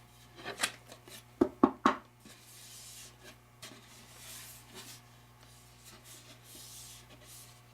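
Box joint jig parts being handled: a few sharp knocks in the first two seconds, then soft rubbing and rustling.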